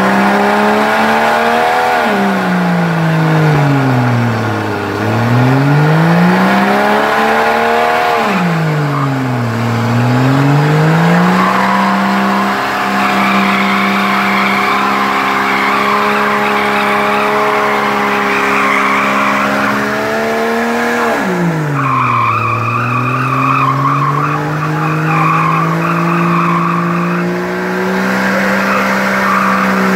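Jeep Cherokee XJ doing a four-wheel burnout: the engine revs up and falls back about four times, then holds high revs with the tyres screeching for about ten seconds. The revs drop briefly and climb again to a steady high pitch, with the tyres screeching once more.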